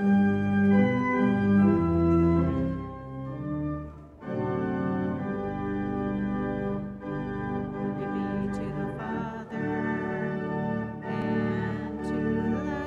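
Church organ playing sustained chords that start abruptly, with a short break about four seconds in before the music goes on.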